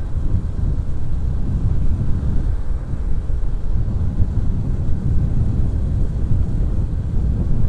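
Motorcycle riding noise: wind rushing and buffeting over the camera microphone on top of the running engine of a Honda Supra X 125, a 125 cc single-cylinder four-stroke underbone, at a steady pace.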